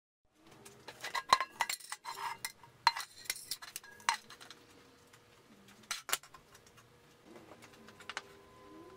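Empty metal paint can being handled: a run of sharp metallic clinks and knocks as the can and its wire bail handle are moved about, with one more knock about six seconds in, then quieter handling noise.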